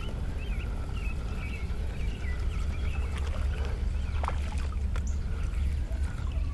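A canoe moving over the water with a steady low rumble, and a couple of light knocks about four and five seconds in.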